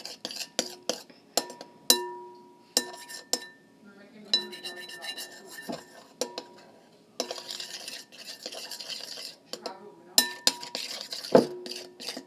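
A spoon stirring glue and blue food colouring in a bowl. It knocks and scrapes against the bowl many times, and some of the knocks leave the bowl ringing briefly.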